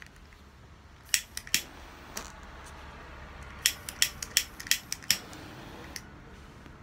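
A disposable lighter being struck again and again to light a cigarette: three sharp clicks about a second in, then a quick run of about six more a couple of seconds later.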